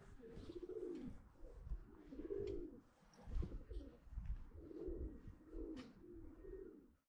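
Pigeons cooing: a string of soft, low coos, about five in a row, over a low rumble.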